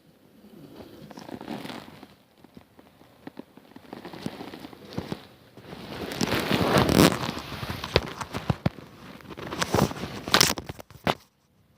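A man snoring in bed: a noisy snore swells and fades roughly every three seconds, the loudest about six to seven seconds in. Crackling and sharp clicks from rustling bedding or handling of the recording device come between and over the snores, mostly in the second half.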